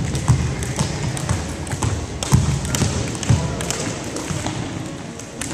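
Irregular thuds and sharp slaps on a wooden gym floor from people jumping rope.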